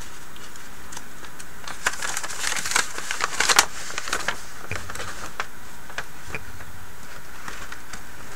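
Large Priority Mail mailing envelope rustling and clicking as it is picked up and handled, busiest about two to three and a half seconds in, then in sparser rustles over a steady low hiss.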